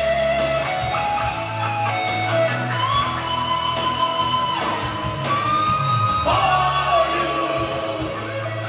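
Instrumental backing track of a pop song played through a PA loudspeaker: a held, gliding lead melody, possibly guitar, over bass and a steady drum beat, with some room echo.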